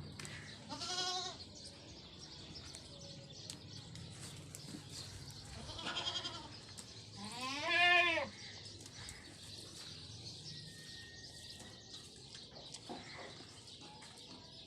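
Goats bleating: three calls, a short one about a second in and two more near the middle, the last the loudest and longest.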